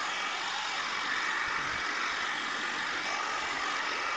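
Handheld electric heat gun running steadily, blowing hot air to dry a wet plastic bumper.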